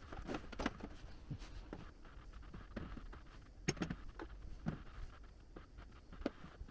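Scattered light clicks and taps of tableware, bowls, cups and chopsticks being handled at a meal table, with one sharper click about halfway through.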